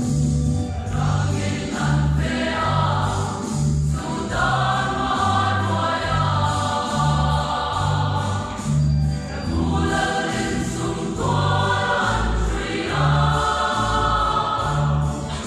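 A large mixed choir of men and women singing a gospel hymn, over a low bass accompaniment that changes notes in a steady rhythm.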